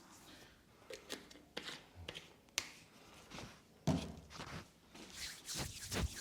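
Hands working over a body in a massage: irregular rubbing, patting and slapping on skin and cloth, with a sharp click about two and a half seconds in and a heavier thud near four seconds in.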